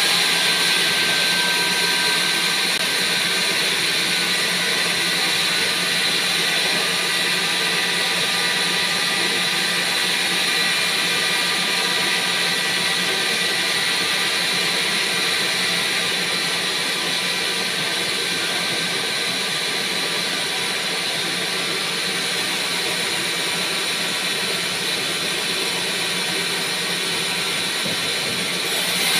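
Large band saw running steadily, its motor and spinning blade giving an even hum with a strong high hiss.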